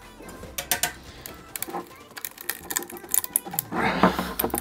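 A steel spatula scraping and clicking against a perforated 3D printer build plate as it is worked under a printed part's raft to pry it off: rapid, irregular clicks and scrapes that grow denser and louder near the end.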